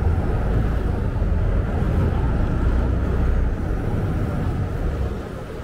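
Saen Saep canal express boat running under way, heard from on board: a steady, loud low engine rumble with a haze of noise above it, easing off a little near the end.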